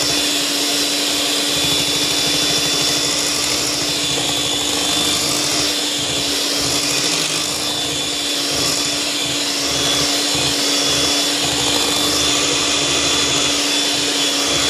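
Electric hand mixer running steadily, its beaters churning thick cake batter as flour is worked in. The motor whine holds one even pitch throughout.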